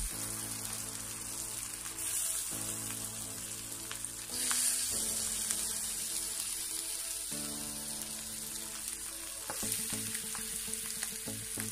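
Bread slices soaked in melted butter sizzling on the hot plate of an electric contact grill, with the sizzle brightening a few times as more slices are laid down. Soft background music with held notes plays underneath.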